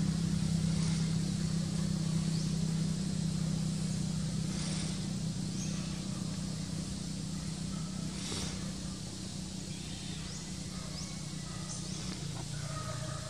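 A motor vehicle engine running steadily nearby as a low hum that slowly fades away, with faint short high chirps over it.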